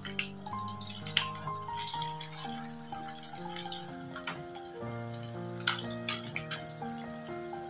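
Sabudana vadas deep-frying in hot oil: a steady sizzle full of small crackles, with sharp clicks from the slotted spoon against the pan, the loudest about six seconds in. Background music with held melodic notes plays throughout.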